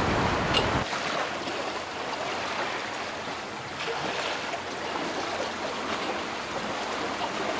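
Sea water rushing and washing past the hull of a sailboat under way, a steady hiss. Wind rumbles on the microphone until it stops abruptly about a second in.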